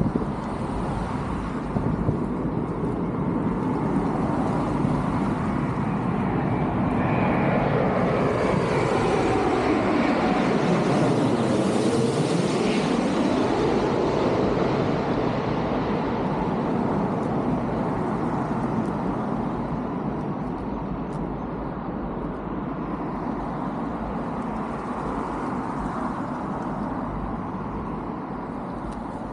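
Jet airliner passing low overhead on its landing approach: the engine noise builds for about ten seconds, peaks, then slowly fades. A hollow sweeping tone falls and then rises as it goes over.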